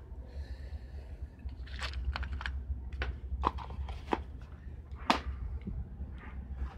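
Handling noise from a hand-held camera and a hand moving over a metal mesh table: a few scattered clicks and taps, the loudest about five seconds in, over a steady low rumble.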